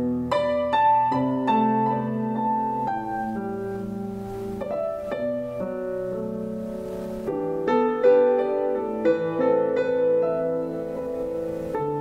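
Piano-led instrumental passage of a recorded song played back through a Polk Audio Signature S20 bookshelf speaker: a run of struck notes over sustained accompaniment.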